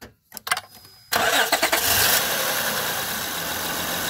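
A 2005 Honda Odyssey's V6 engine is started about a second in after a few light clicks, cranks briefly, catches and settles into a steady idle. No power steering pump whine is heard now that the pinched power steering hose has been replaced.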